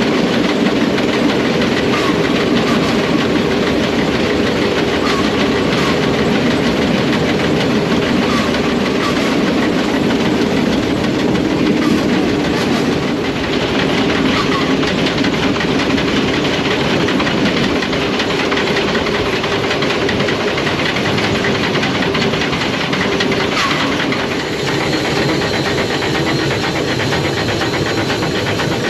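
Vintage steam locomotive running along the line, heard close up: a steady, rhythmic chugging and running noise, with faint clicks from the wheels on the rails every second or two.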